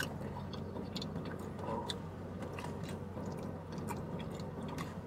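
A person chewing a mouthful of steak-and-cheese burrito, with many small wet clicks and smacks, over a steady low hum.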